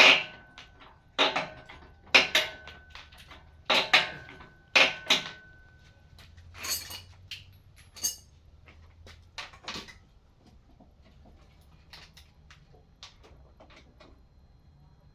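Metal striking metal: five loud sharp clanks in the first five seconds, with a high ringing tone holding between them, then a few lighter knocks that die away about ten seconds in.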